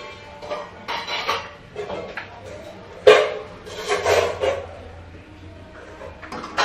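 Metal kitchen utensils clattering against a wok and pans, with one sharp clank about three seconds in.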